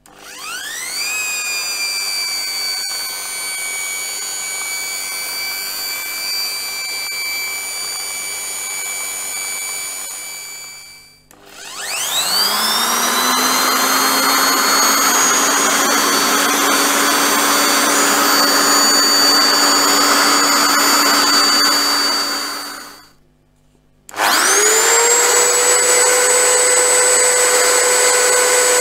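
Bosch GSB 550 550-watt corded impact drill running free with no load, in three runs: each time the motor whines up to speed and holds a steady pitch. It stops twice, winding down about 11 seconds in and again near 23 seconds, and the second and third runs are louder than the first.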